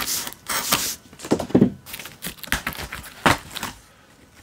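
Packing tape torn off a cardboard shipping box, starting with a long rip, followed by scraping and crinkling as the cardboard flaps are pulled open.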